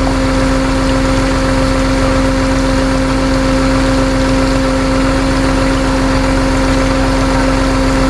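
Vehicle engine running at a constant speed, a steady droning hum that doesn't change pitch.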